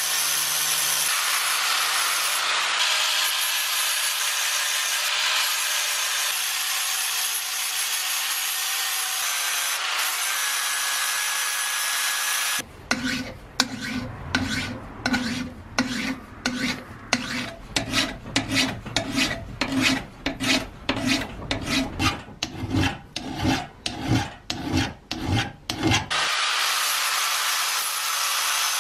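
Angle grinder grinding the rusty steel head of a 7 lb sledgehammer, a steady grinding noise. About 12 seconds in it stops and a hand file rasps across the steel in quick regular strokes, about two a second; near the end the grinder starts grinding again.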